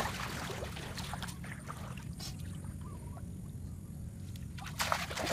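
Bare feet wading through shallow, muddy field water, splashing with each step; the splashing is quieter in the middle and picks up again near the end.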